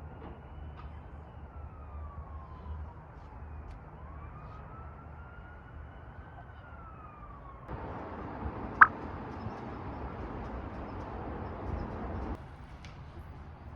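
An emergency-vehicle siren wailing slowly up and down. Then a few seconds of steady hiss that starts and stops abruptly, with one brief, sharp, loud tone partway through.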